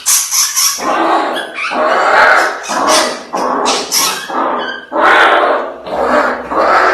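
A dog barking and growling in a string of loud, short bursts, about ten in a row.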